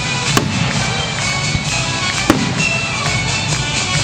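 Aerial firework shells bursting with two sharp bangs, about a third of a second and a little over two seconds in, over orchestral music.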